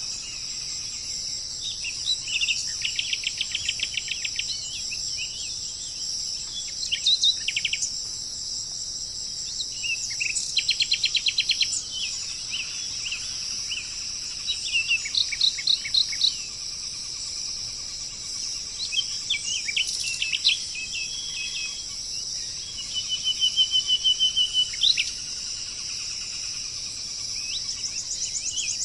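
Songbirds singing phrases of fast repeated chirping notes, each phrase lasting a second or two and coming every few seconds, over a steady high-pitched drone of insects.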